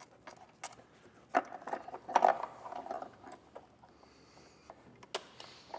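Hands working a wire through a hole behind plastic trim: scattered clicks, knocks and rustling, loudest about two seconds in, with a sharp click about five seconds in.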